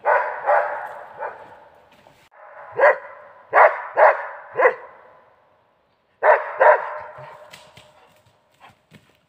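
Dog barking in short runs of sharp barks with pauses between, each bark trailing off in echo, and a few fainter barks near the end.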